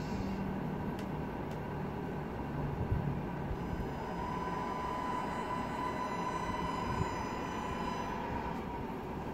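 Tamiya radio-controlled Scania truck running: a steady engine-like rumble, with a whine from its electric drive as it pulls forward from about three and a half seconds in until about eight seconds in.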